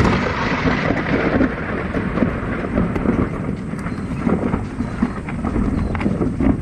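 Thunder: a sudden crack at the start that fades over a second or two into a long low rumble.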